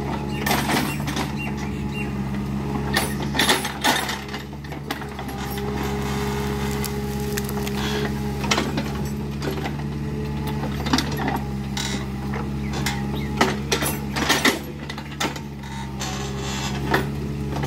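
Kubota mini excavator's diesel engine running steadily while the machine works, with irregular clanks and knocks from the arm, bucket and tracks scattered throughout.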